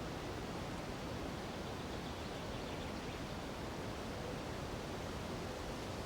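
Steady, even rushing of a nearby mountain river mixed with wind through the treetops, with no distinct events.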